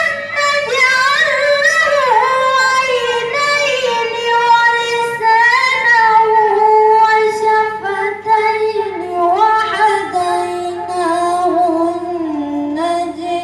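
A young boy chanting a melodic Quran recitation into a microphone, drawing out long held notes whose pitch sinks slowly over the phrase.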